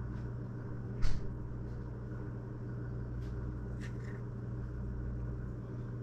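A steady low hum, with a single sharp knock about a second in and a couple of light clicks later, as a knife slices avocado against a plate.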